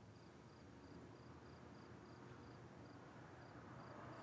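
Near silence: faint room tone, with a cricket chirping softly and evenly, about three chirps a second.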